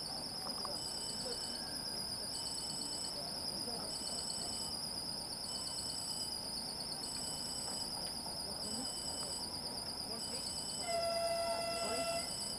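Level-crossing warning signal sounding: a steady, warbling high electronic tone with a second high beep that switches on and off about every three quarters of a second. Near the end a horn sounds once for about a second.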